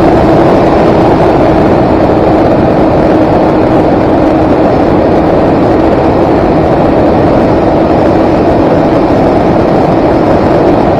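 Multirotor drone's motors and propellers running steadily, a loud even buzz with a held hum, picked up by the camera on board the aircraft.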